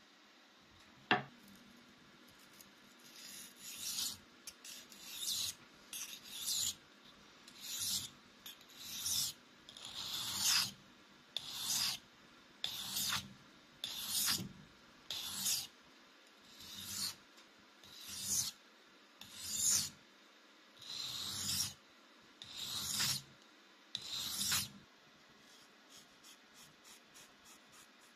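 Steel knife blade sharpened on a whetstone: about twenty scraping strokes across the stone, roughly one a second, after a single sharp click about a second in. Near the end come a few faint quick ticks.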